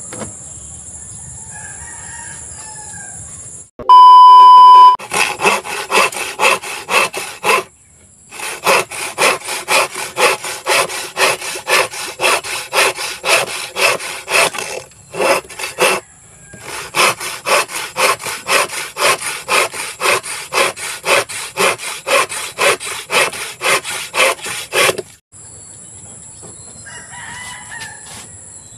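Hand saw cutting a wooden board in quick, even strokes, about two to three a second, in three runs with short breaks. About four seconds in, a loud steady beep lasts about a second and is the loudest sound. A steady high insect drone is heard before and after the sawing.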